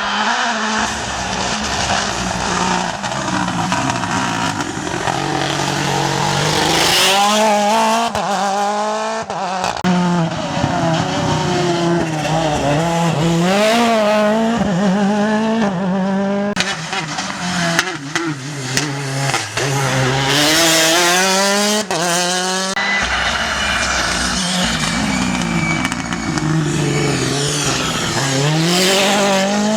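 Rally cars driven hard through a stage, engines revving up and dropping back through gear changes, with tyre squeal. The sound breaks off and starts afresh three times, about ten, sixteen and twenty-three seconds in.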